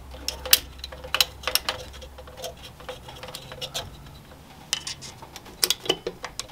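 Irregular light metallic clicks and taps of a milling machine's quill return-spring cover being fiddled loose by hand, then prodded with a screwdriver near the end.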